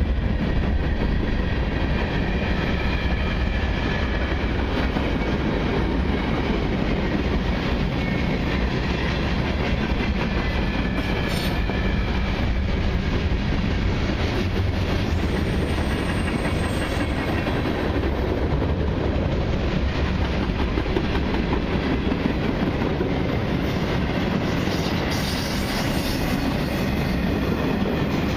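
Cars of a long mixed freight and autorack train rolling past close by: a steady rumble of steel wheels on the rails with clickety-clack over the joints and a faint high wheel squeal at times.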